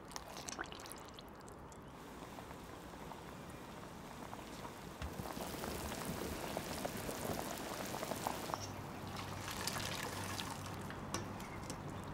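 Water at a rolling boil in a pot of zongzi, a steady bubbling and crackling that grows louder about halfway through.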